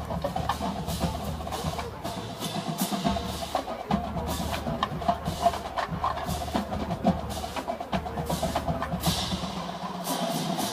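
Marching band playing, with a drumline's sharp, rapid strokes over held pitched band tones.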